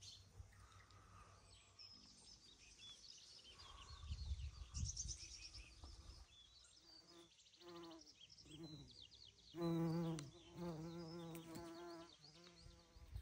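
Small birds chirping and a gust of wind on the microphone, then a flying insect buzzing close to the microphone through the last few seconds, its pitch wavering as it moves.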